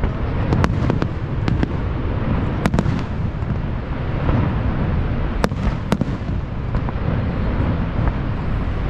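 Aerial fireworks bursting: several sharp cracks and bangs at irregular intervals over a steady low rumble.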